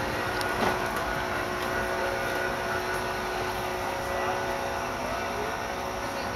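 Steady drone of a distant engine, holding one pitch throughout.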